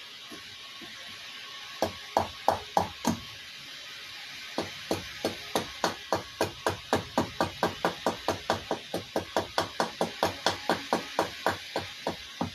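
Hatchet chopping into a wooden cup blank held upright on a chopping block, roughing out a kuksa. Four quick blows about two seconds in, then after a short pause a steady run of blows at about three a second.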